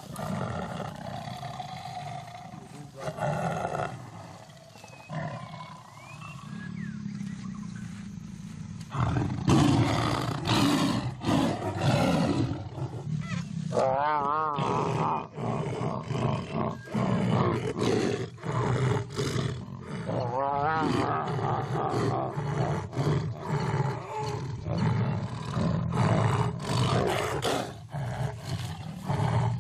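A mating pair of tigers snarling and growling, quieter at first and louder from about a third of the way in, with two wavering yowls near the middle.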